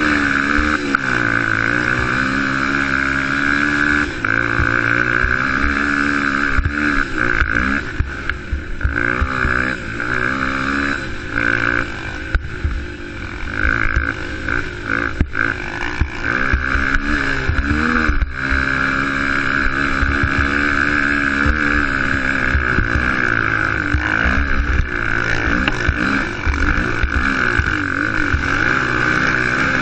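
Youth racing quad's engine heard from onboard, revving up and easing off again and again as the rider works the throttle and shifts. It is choppier and a little quieter through the middle stretch, then pulls steadily again.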